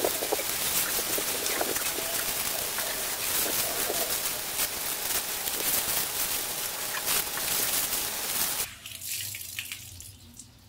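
Water from a hose pouring and splashing onto a wet tiled floor while excess dye is rinsed out of a dyed T-shirt. The flow cuts off suddenly about nine seconds in.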